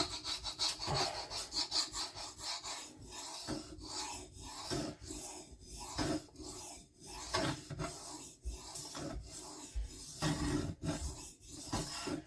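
Steel knife blade stroked back and forth on a diamond sharpening plate wetted with soapy water: steady scraping strokes with a short break at each turn, about one a second.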